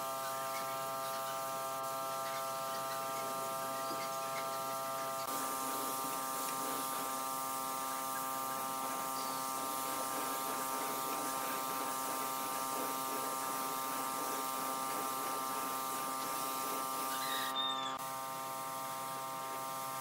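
Steady electric buzz of a small motor running, made of several even tones held at one pitch. Its tone shifts slightly about five seconds in, and it drops a little in level near the end.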